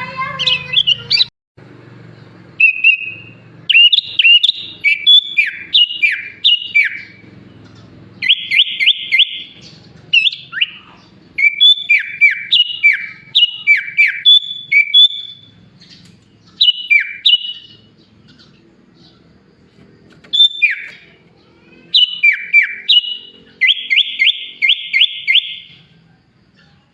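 Sooty-headed bulbul singing in bursts of quick, falling whistled notes separated by short pauses, with two fast rattling trills, one about eight seconds in and one near the end. Its song is laced with mimicked phrases of bar-winged prinia, greater green leafbird and Javan pied starling.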